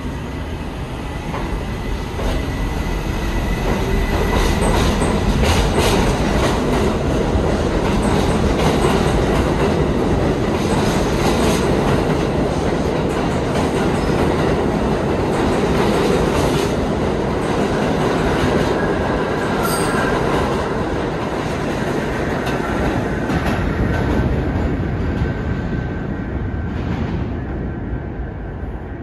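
R68 subway train accelerating out of the station and passing close by: a steady rumble of wheels and motors with clickety-clack over the rail joints and brief wheel squeal. The sound builds over the first few seconds and fades near the end as the last car enters the tunnel.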